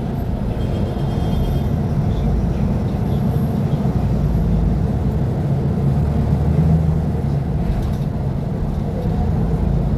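Mercedes-Benz O500U city bus diesel engine running with a steady low drone; it swells slightly about two-thirds of the way in, then eases.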